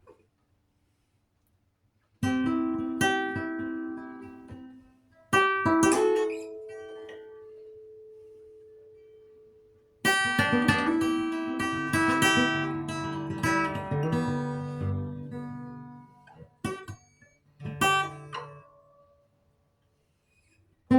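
Solo acoustic guitar played with pauses between phrases. A chord is struck a couple of seconds in, then another, and left to ring out for several seconds. A busier run of plucked notes over bass notes follows, then a few short plucks.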